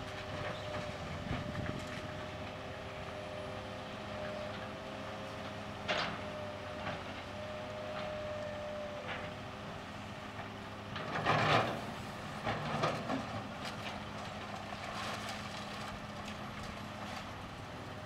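Heavy diesel engine running steadily while an excavator loads a dump truck, with a sharp clank about six seconds in and a louder crash of debris dropping into the truck's steel bed about eleven seconds in, followed by a few smaller knocks.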